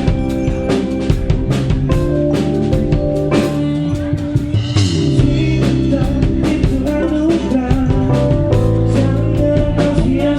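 Live band playing a song, with a drum kit keeping a steady beat under guitar and sustained chords.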